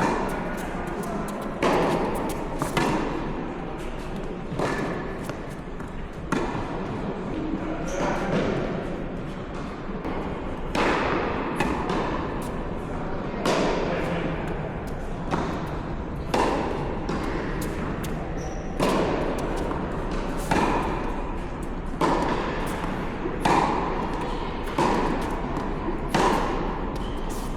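Tennis balls struck by rackets in a rally, sharp hits and bounces about every second or so, over steady court background noise.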